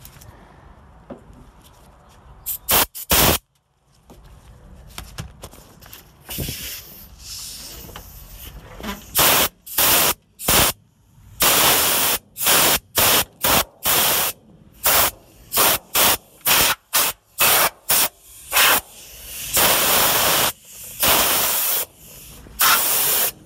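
Compressed-air blow gun firing a long series of short blasts, about two a second through the middle, with several longer blasts near the end. It is blowing dust and loosened bits of scraped-off sound deadener out of the car body's crevices and holes.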